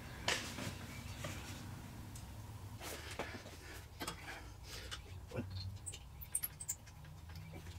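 Faint scattered clicks and light metal knocks of a motorcycle exhaust header pipe being fitted, with its bracket nuts started on the bolts by hand, over a low steady hum. A quick run of small ticks comes a little past the middle.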